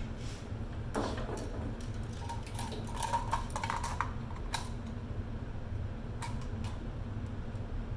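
Scattered light clicks and taps of hands working the stranded wires of an electrical cord at a workbench, over a steady low hum.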